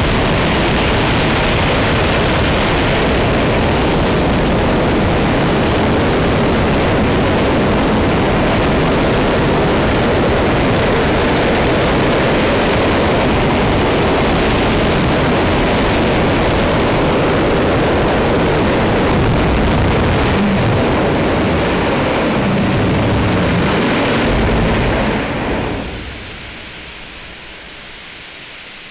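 RS-25 liquid-hydrogen/liquid-oxygen rocket engine firing during a ground test: a loud, steady roar. About 25 seconds in the roar falls away quickly, leaving a quieter steady hiss.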